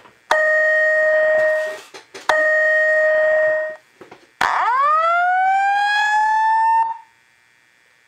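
Fire alarm speaker of a System Sensor SP1R2475ADA speaker strobe sounding two long steady tones of about a second and a half each, then a rising whoop of about two and a half seconds. This is the slow-whoop alert signal that leads into a Simplex voice evacuation message.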